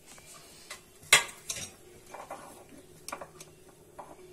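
Steel kitchenware clinking: a handful of sharp metal knocks, the loudest about a second in, over a faint steady hum.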